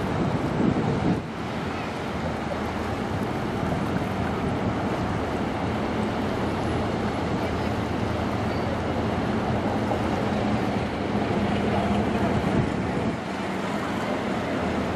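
A 728-foot Great Lakes bulk carrier passing close by: a steady low drone from the ship under the rush of its wash along the hull, with wind on the microphone.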